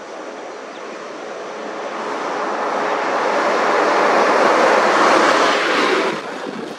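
Road vehicle noise, a rushing sound that swells over a few seconds and drops off sharply about six seconds in.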